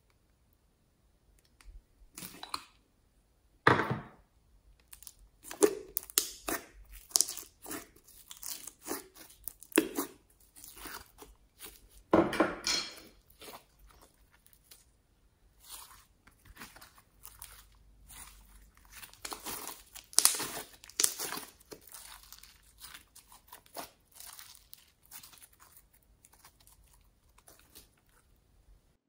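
Glittery store-bought slime being handled, pulled from its tub and stretched by hand, making irregular sticky tearing and crackling sounds with short pauses between them.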